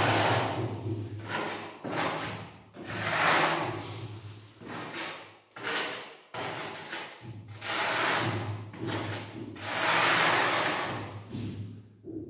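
Small steel trowel scraping tile adhesive along the edge of freshly laid porcelain floor tiles on a concrete floor, in a series of drawn-out scraping strokes, about one a second.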